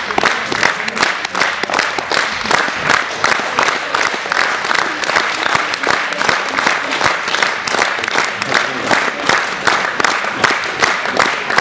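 Audience applauding steadily: many hands clapping at once, keeping an even level throughout.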